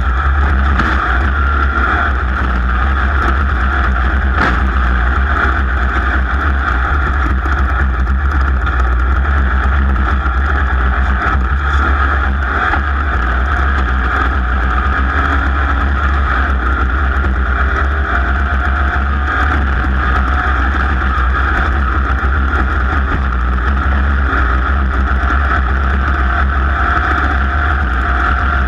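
Off-road race car running at speed, its engine note steady and mixed with heavy wind and road rumble on the microphone.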